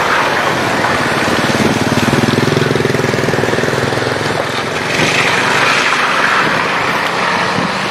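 A motor scooter's small engine passing close, its rapid firing loudest in the first half. Then a car's tyres swish through wet mud on the road.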